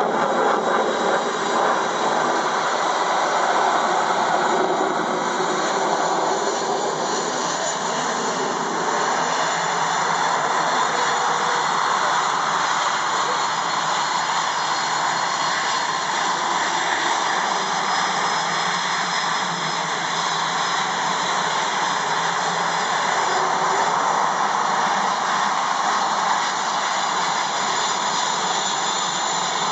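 Northrop F-5E Tiger II jets' General Electric J85 turbojets running on the ground at low power: a steady, loud rushing whine that does not rise or fall.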